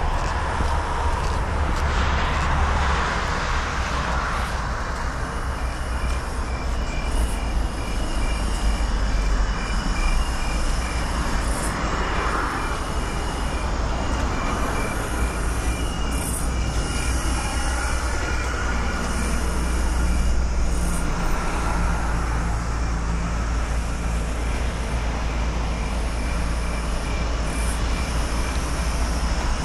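Steady rumble of vehicle traffic on a city street. From about five seconds in there is also a faint, high, evenly repeating beep.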